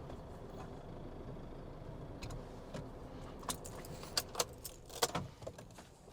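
Pickup engine running low and steady inside the cab, then from about three and a half seconds a quick series of sharp clicks and jangles of car keys being handled.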